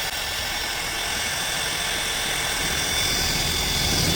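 Power drill running steadily under load, cutting a hole through the sheet-metal hood of a Jeep Cherokee XJ, with a high whine over the cutting noise; it stops suddenly at the very end.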